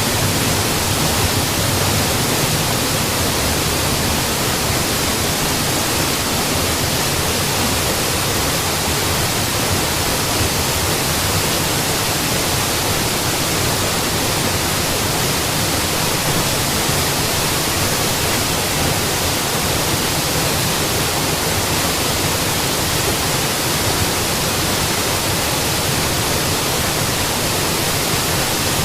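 Mountain waterfall: a steady, even rush of falling water without a break.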